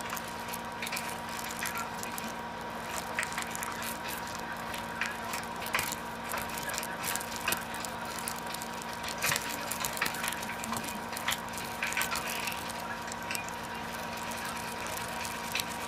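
Faint, irregular light clicking and crackling over a steady electrical hum.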